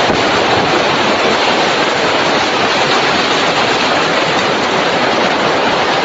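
Typhoon wind blasting steadily: a loud, unbroken rushing noise of the storm.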